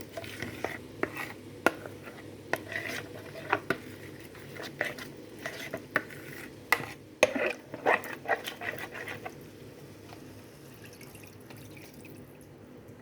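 A spoon scraping and knocking against a cooking pot as chicken in masala gravy is stirred, in irregular strokes. The clatter stops about ten seconds in.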